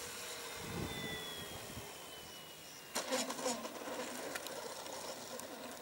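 Electric motor of a Top-Flite Cessna 182 RC model whining faintly, its pitch sliding slowly down as it is throttled back on the landing approach. About three seconds in comes a sudden rattle as the wheels touch down and roll on the tarmac.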